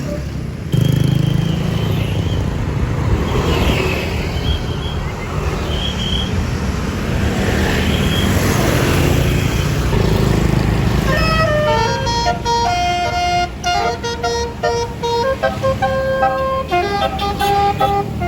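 A bus engine running loudly. From about two-thirds of the way through, a Basuri multi-tone 'telolet' horn plays a quick tune of short notes that stops and starts.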